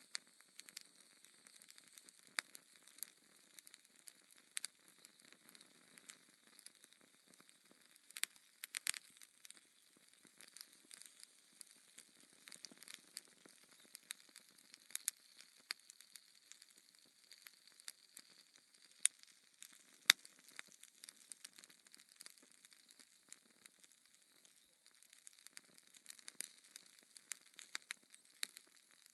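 Logs burning in a fireplace, crackling: irregular sharp pops and snaps over a faint steady hiss, with the two loudest pops about two-thirds of the way through.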